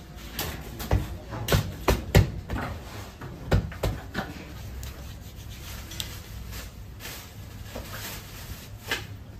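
Hands pressing and stretching pide dough on a floured wooden worktable: a run of dull knocks against the wood in the first four seconds, then softer rubbing and patting of the dough, over a steady low hum.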